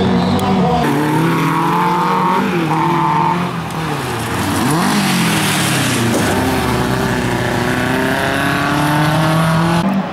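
Bilcross race car engines revving hard, the pitch climbing and dropping through gear changes and lifts. Around the middle, tyres scrabble and slide on loose gravel.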